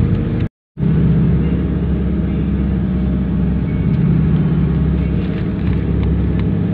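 Steady low rumble of a moving vehicle's engine and road noise heard from inside the cabin. The sound cuts out completely for a moment about half a second in.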